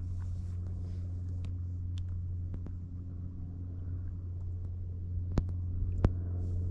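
A steady low motor hum, with two sharp clicks near the end.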